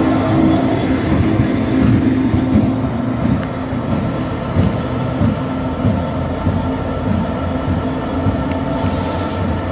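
Direct Rail Services Class 66 diesel locomotive's EMD two-stroke V12 engine giving a steady drone as it moves away along the platform, with scattered sharp clicks of wheels over the rail joints.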